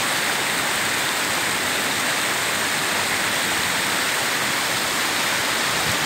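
Water rushing steadily down a rock-slab waterfall, shallow cascades churning over the stone in a continuous loud wash.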